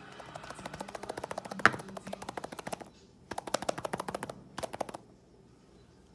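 Daiso plastic rice ball shaker being shaken hard, the rice knocking against its plastic domes in a fast clatter. It comes in three bursts: a long one of about three seconds, then two shorter ones, before stopping about five seconds in.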